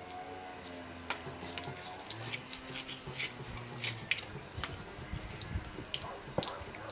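Thin stream of tap water splashing into a water-filled stone basin, with drips, splashes and sloshing as a fish is rinsed and handled in the water.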